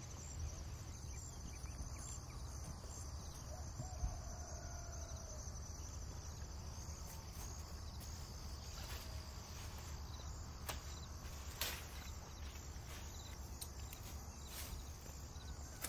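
Crickets chirping steadily in a high, fine trill, over a low rumble, with a few sharp clicks or knocks scattered through.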